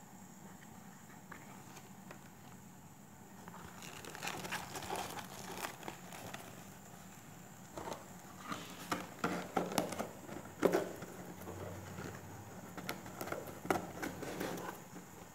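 Paper and card crinkling and rustling with quick clicks and taps as a handmade gift box is handled and opened. It starts after a few seconds of quiet.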